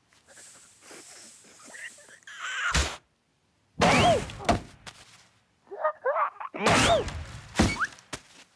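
Cartoon slapstick sound effects: a hard thunk nearly three seconds in, followed by two loud bursts of noise mixed with a cartoon character's wordless, pitch-sliding vocal cries.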